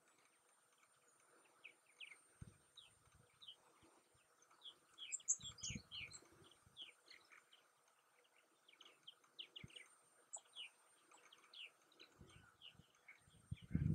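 Common merganser ducklings peeping softly, a dense chatter of short, high, falling chirps from the huddled brood, with a few faint low thumps.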